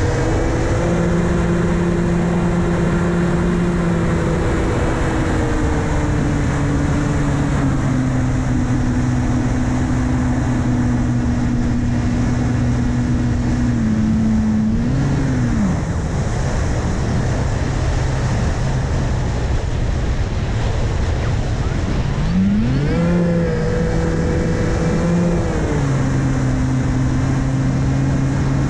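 Electric brushless motor (2212 1400KV) spinning an 8x6 APC propeller, a steady pitched drone heard from the onboard camera under a rush of wind noise. The motor note drops and fades about halfway through as the throttle comes back, rises sharply about 22 seconds in as it is opened up, then steps down a few seconds later.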